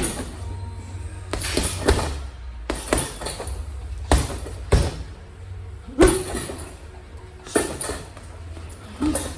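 Boxing gloves punching a heavy bag: about nine heavy thuds at an uneven pace, roughly one a second, over a steady low hum.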